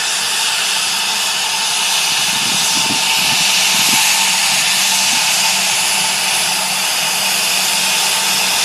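Canadair Regional Jet's turbines running while the plane stands near the gate: a loud, steady jet whine over a rushing hiss, swelling slightly a few seconds in.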